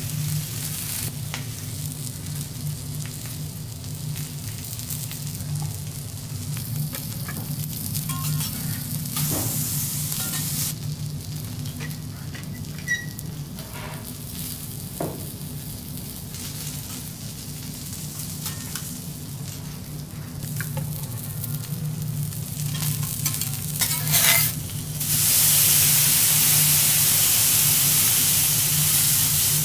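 Food sizzling and frying on a teppanyaki griddle, with metal spatulas scraping and now and then clicking against the iron plate, over a steady low hum. About 25 seconds in, a much louder, steady hissing sizzle starts, as when liquid hits the hot plate and flashes to steam.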